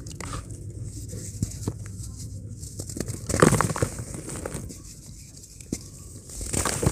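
Chunks of dry cement crumbled by hand: gritty crunching and crackling as fragments and powder fall onto loose cement. The loudest crunch comes about halfway through, and it swells again near the end.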